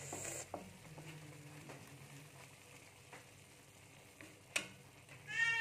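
Wooden spatula stirring a stir-fry of long beans and tempe in a wok, with a faint sizzle of hot oil and a few light knocks of the spatula against the pan. A short high-pitched call rises and falls near the end.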